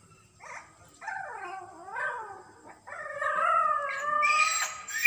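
A dog whining: a string of long, wavering cries that grow louder and turn shriller near the end.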